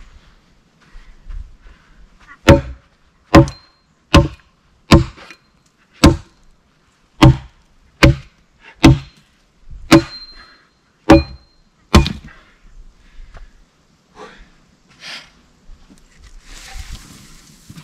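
Hatchet chopping into wood, eleven sharp blows about one a second, some with a brief metallic ring. A few lighter blows follow, then a short rustling noise near the end.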